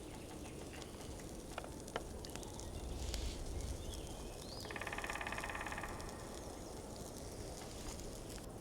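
Campfire crackling with a few sharp pops, and a little past halfway a rasping, buzzing call about a second and a half long.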